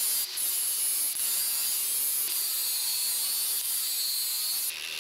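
Angle grinder's abrasive disc grinding a hardened steel billhook blade, a steady high grinding hiss. It breaks off briefly just after the start as the blade is lifted, then runs on and stops suddenly near the end.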